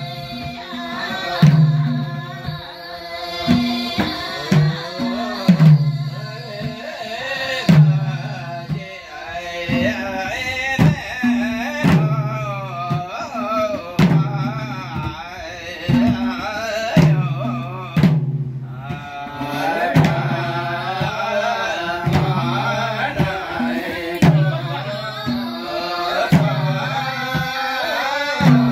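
A madal, a two-headed barrel hand drum, plays a slow, steady rhythm: a deep ringing stroke about every two seconds with lighter slaps between. Voices sing a folk song over it.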